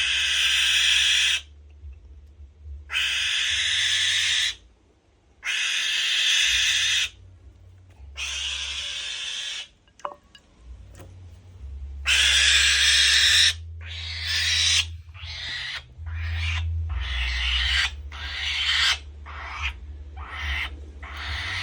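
Falcon giving repeated hoarse, hissing screeches, each over a second long at first with gaps between, then shorter and quicker in the second half.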